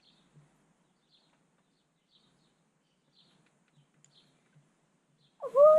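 Near silence, with faint short high chirps about once a second, like a bird calling in the background. A voice starts loudly near the end.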